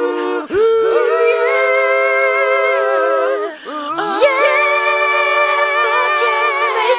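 Layered a cappella vocal harmonies holding sustained chords. One chord is held for about three seconds, the sound dips briefly with an upward vocal swoop, then a new, higher chord is held from about four seconds in.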